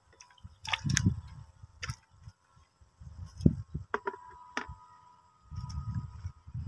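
A plastic bucket and its lid handled by hand: scattered sharp clicks and knocks, with spells of low rumbling handling noise.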